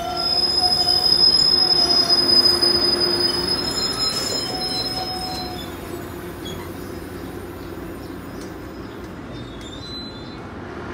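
Metrolink bi-level passenger cars rolling slowly past, their steel wheels squealing in a high steady tone over the rumble of the cars. The squeal is loudest in the first few seconds and dies away about halfway through, leaving a quieter rolling rumble.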